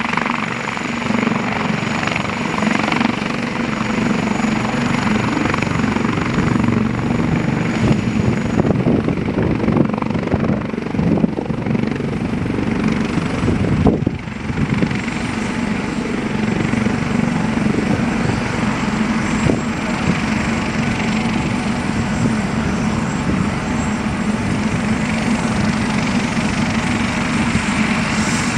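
Eurocopter AS365 Dauphin twin-turbine helicopter running close by, first hovering low and then turning its rotor on the ground. It makes a loud, steady rotor beat and turbine noise with a thin high whine.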